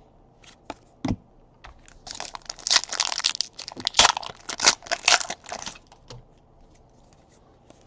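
Crinkling and tearing of a trading-card pack's foil wrapper as it is opened, dense for about four seconds after a few light handling clicks.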